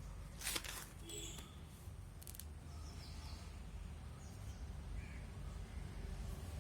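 Faint background with a few short bird calls and a couple of sharp clicks in the first half, over a steady low hum.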